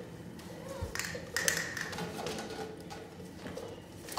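Scattered taps and clinks of a puppy play gym's hanging chains and toys being knocked about, one knock about a second and a half in followed by a short metallic ring.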